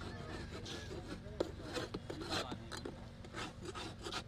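A small metal blade scraping over the wooden bed of a jaggery cooling tray, loosening hardened jaggery crumbs, in a run of short rasping strokes, several a second, that grow more regular after the first second or so.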